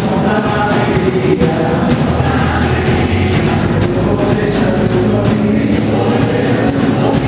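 Gospel praise music: group singing over a band with a steady drum beat.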